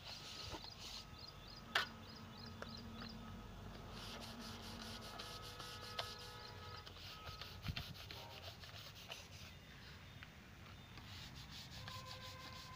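Hand trowel scraping and smoothing wet cement mortar in repeated faint rubbing strokes, with one sharp tap about two seconds in.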